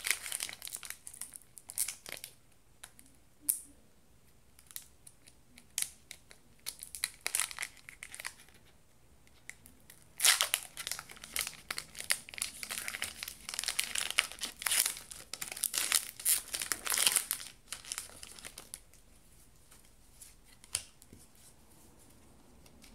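Foil Pokémon TCG booster-pack wrapper crinkling and tearing as the pack is opened. The crackling is densest and loudest from about ten seconds in to about seventeen, with scattered lighter crackles and taps before and after.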